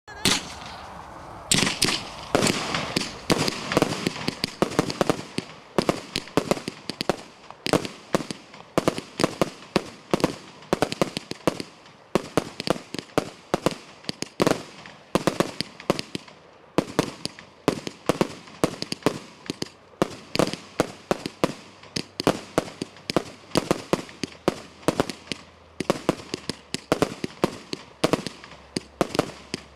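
Four Thunder Bomb firework cakes fired together: a rapid barrage of loud, sharp bangs, several a second, from the cakes' thunder shots mixed with coloured-star shots. The barrage thickens about a second and a half in.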